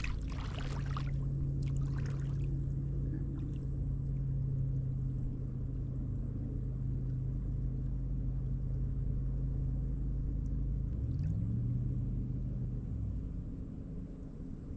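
A motorboat engine running steadily at a low pitch. About eleven seconds in, its pitch glides up and then settles, and the engine sound stops about two seconds later.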